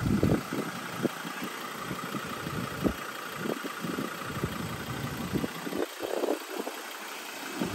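A vehicle engine idling steadily, with irregular short low thumps over it.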